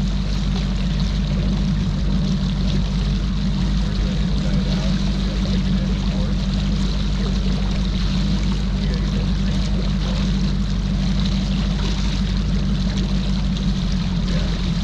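Bass boat's outboard motor running steadily at low speed, a constant low drone.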